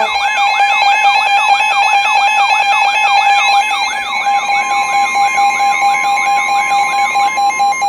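Emergency alert attention signal ahead of a flash flood warning: a loud, steady tone with a siren-like sweep repeating about three times a second over it, stopping just before the spoken announcement.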